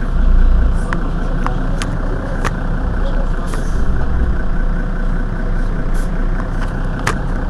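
Mercedes-Benz Citaro city bus engine idling steadily while the bus stands at a stop, with a few light clicks over it.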